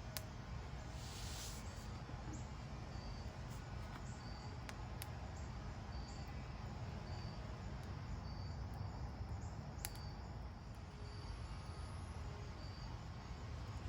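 Wood campfire crackling, with a few sharp pops, over a steady low rumble. A cricket chirps in short, evenly spaced high notes.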